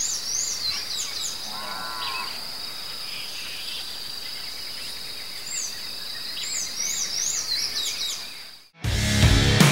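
Evening countryside ambience: a steady high insect drone, with birds calling in quick rising-and-falling notes near the start and again about seven seconds in, and a short lower animal call about two seconds in. Near the end it cuts off abruptly and rock music with electric guitar begins.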